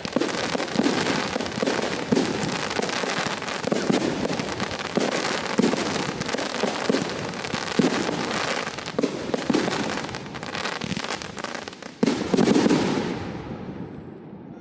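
Fireworks going off in a dense crackle of rapid bangs. A last loud burst comes about twelve seconds in, then the noise dies away.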